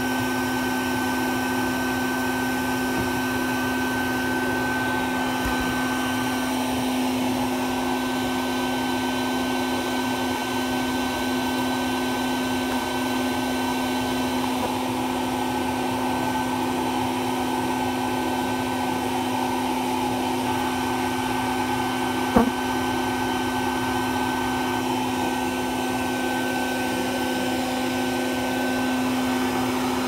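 Bee vacuum motor running steadily with an even hum, with one sharp knock about two-thirds of the way through.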